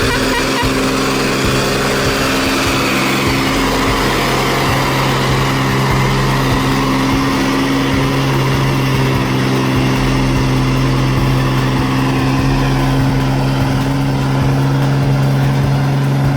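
Heavy truck's diesel engine running steadily under load.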